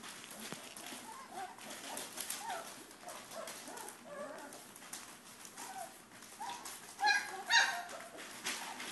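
Young Pyrenean Mastiff puppies, three and a half weeks old, squeaking and whining as they play, with soft scratching of paws on the paper floor. Two louder yelps come about seven seconds in.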